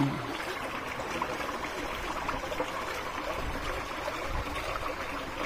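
Water trickling and splashing steadily into a fish pond, with small faint ticks of splashes.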